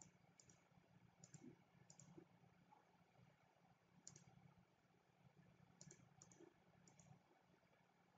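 Faint computer mouse clicks, about eight quick press-and-release ticks spread unevenly over near-silent room tone.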